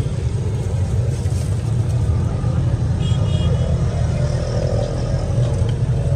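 Steady low rumble of street traffic and engines.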